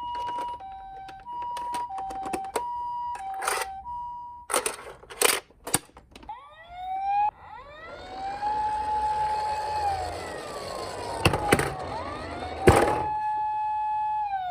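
Toy ambulance's electronic siren: first a two-tone hi-lo siren alternating about twice a second, then after a few sharp clicks it switches to a wailing siren that glides up and down. A rough noise and several loud knocks from the plastic toy run under the wail.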